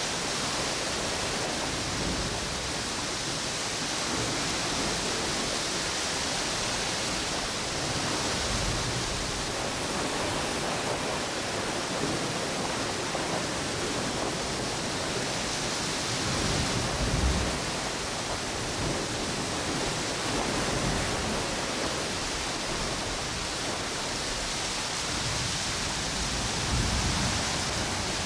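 Ocean waves washing on a beach together with strong wind through palm trees, making a steady wash of noise. The low end swells twice, about two-thirds through and near the end.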